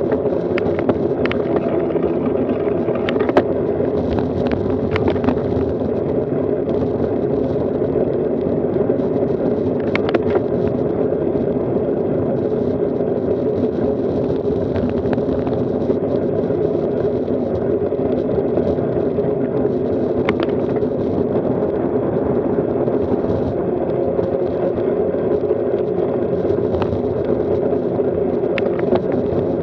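Road bicycle rolling along a rough country lane, heard through a bike-mounted camera as a steady, muffled rumble of tyre and road vibration and wind, with a few sharp clicks scattered through it.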